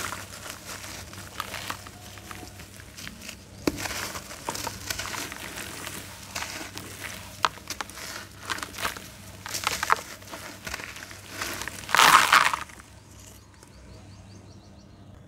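A dry, gritty red slab crunching and crackling as it is crumbled apart by hand, with a run of sharp gritty cracks. The loudest crunch comes about twelve seconds in, then the sound drops to faint rustling.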